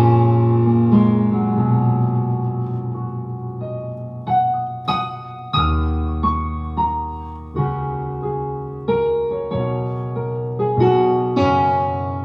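Digital piano playing a slow piece. A chord is held and fades over the first four seconds, then single notes and chords are struck every half second to a second, each dying away.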